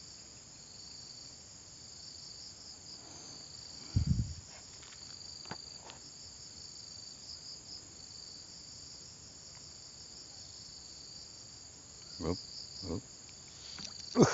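Steady, high-pitched chorus of insects, with a dull thump about four seconds in and a few short knocks near the end.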